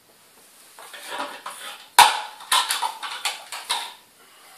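Slow-juicer parts (plastic augers) knocking and clattering as they are handled: a sharp knock about two seconds in, then a run of lighter clicks and taps.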